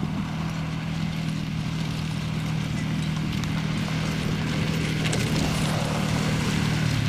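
Speed skates scraping and striking rough natural lake ice in a steady rhythm as a pack of marathon skaters comes closer, growing gently louder, over a steady low engine hum.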